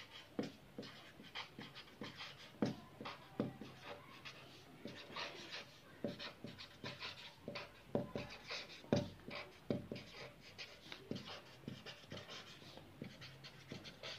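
Marker pen writing on paper: a fast, uneven run of short scratchy strokes, one for each stroke of the handwriting, faint.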